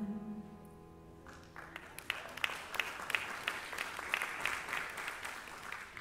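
A worship band's last guitar chord ringing out and fading, then a congregation breaking into light applause, individual claps audible, from about a second and a half in.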